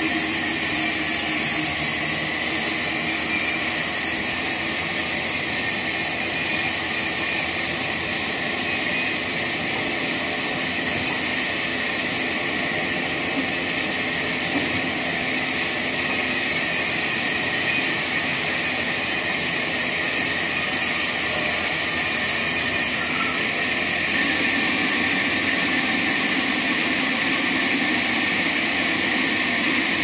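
Horizontal band sawmill blade cutting lengthwise through a babul log as the carriage feeds it, a steady, loud, high-pitched saw noise over the hum of the electric drive. About 24 seconds in, the lower hum grows a little stronger.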